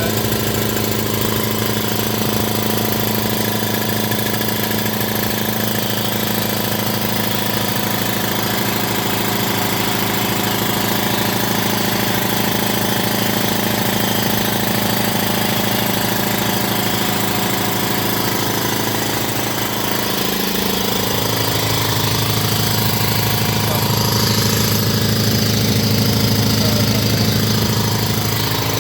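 DeVilbiss Pro 4000 5 hp twin-piston air compressor running steadily under load, its electric motor and pump filling the 60-gallon tank toward the roughly 120 PSI cut-out. The tone shifts about twenty seconds in, and the sound grows a little louder near the end.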